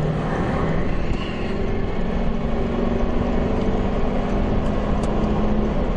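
Steady low rumble and hiss of the storm chasers' vehicle, with a faint engine hum underneath.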